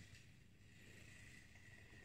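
Near silence: faint, steady background noise.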